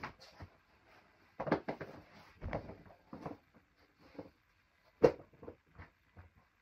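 Scattered bumps, knocks and rustling from someone moving about a small room, with a sharp knock about five seconds in.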